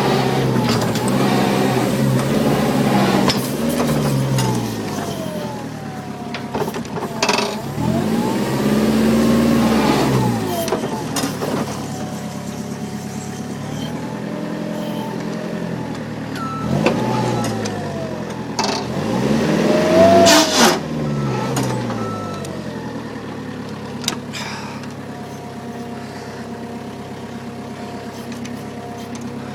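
Site dumper's engine revving up and dropping back several times as it is driven over rough ground, with a few knocks and clunks.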